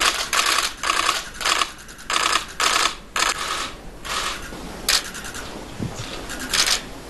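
Camera shutters clicking in rapid bursts while a group photograph is taken. The bursts are thick for the first few seconds, then come only now and then.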